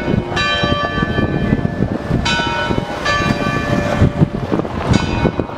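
Church bells of Funchal's Sé cathedral ringing: about four strikes a second or two apart, each note ringing on as the next comes in, over the hubbub of a busy pedestrian street.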